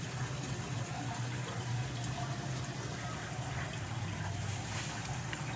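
Running water under a steady low hum.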